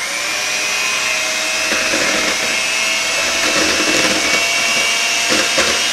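Electric hand mixer running steadily at speed, its beaters whipping heavy cream in a plastic bowl.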